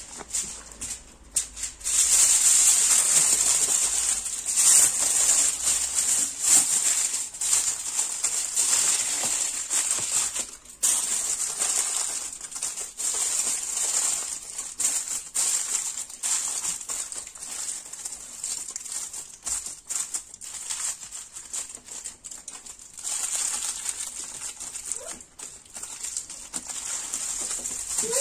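Aluminium foil crinkling and crackling irregularly as it is folded and pressed around a fish.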